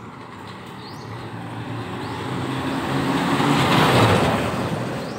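A car driving past close by: its engine and tyres grow louder, are loudest about four seconds in, then fade as it goes by.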